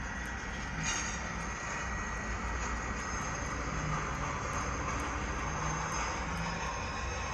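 Railway cars rolling past: a steady rumble of wheel and rail noise, with a thin, high, steady squeal of wheel flanges against the rail over it.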